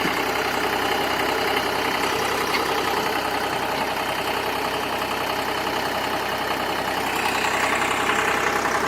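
Ditch Witch 5110DD's Deutz F3L912 three-cylinder air-cooled diesel running steadily at idle, a little louder for the last couple of seconds.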